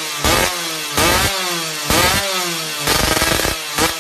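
Yamaha F1ZR two-stroke engine through an aftermarket AHM Malaysia racing exhaust, blipped in short revs about once a second and dropping back to idle between them. About three seconds in, one rev is rougher and choppier.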